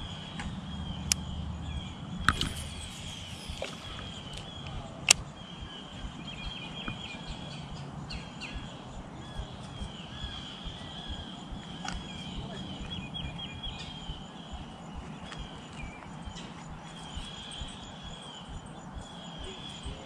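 Steady outdoor chorus of insects chirping in a high, rapidly pulsing band, with a few sharp clicks, the loudest about five seconds in.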